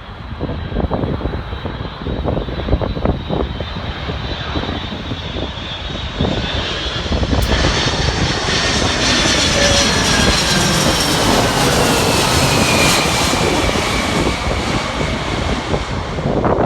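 Jet airliner on arrival approach passing close by. Its engine noise builds about a third of the way in, and its whine falls in pitch as it goes past. Wind buffets the microphone throughout.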